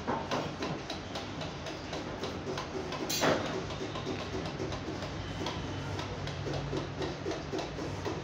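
Regular ticking, about three to four ticks a second, with a sheet of printed paper being handled and turned. The loudest moment is a short paper rustle about three seconds in.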